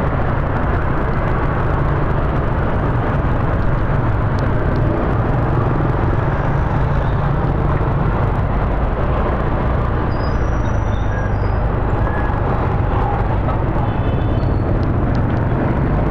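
Motorbike engine running steadily with wind and road rush while riding among other motorbikes in traffic. A few faint short high tones sound about ten seconds in and again near the end.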